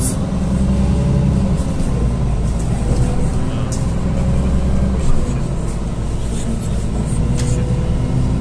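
Steady low engine drone and road noise inside a NefAZ-5299 city bus underway, with a few light clicks from the body.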